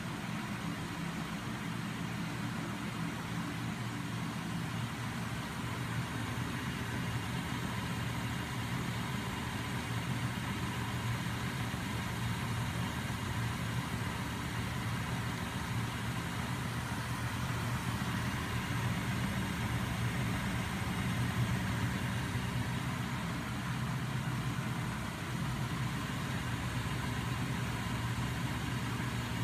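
Homemade magnet-crankshaft machine running, driven by a small 12 V brushed DC starter motor, with its other DC motors turning as generators: a steady mechanical hum and whir.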